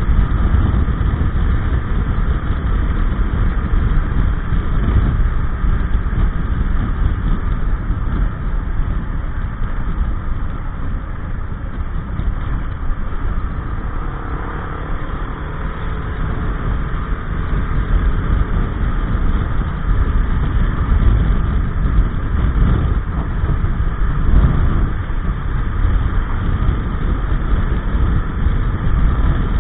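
Gilera Nexus 500 maxi-scooter under way on the road: its single-cylinder engine running under heavy wind rush on the camera microphone. It eases off for a few seconds in the middle, then picks up again.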